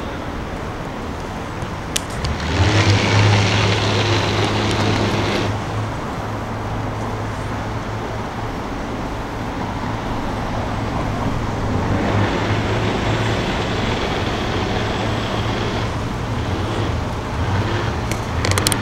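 An engine running with a steady low hum that sets in about two and a half seconds in, over constant outdoor noise; twice a brighter hiss swells up for a few seconds and fades.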